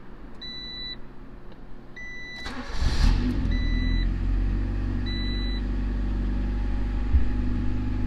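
Honda CRX cold start: a short crank about two and a half seconds in, the engine catches and settles into a steady idle. The dash warning chime beeps about every second and a half before and after the start.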